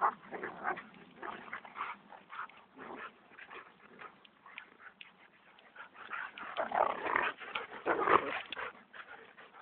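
A standard poodle and a golden retriever play-fighting, with dog growls and yips in short, irregular bursts that grow loudest and busiest about two-thirds of the way in.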